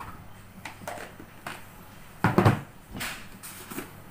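Small knocks and clatters of kitchen containers being handled on a tabletop, the loudest a thump a little over two seconds in.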